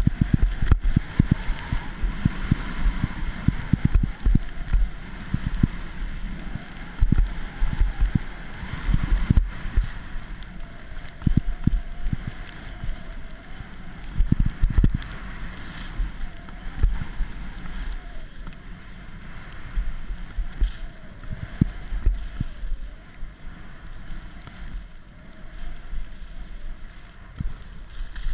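Wind buffeting the camera's microphone in gusty low rumbles during a fast ski run, over a steady hiss of skis sliding on snow. The buffeting eases over the last few seconds.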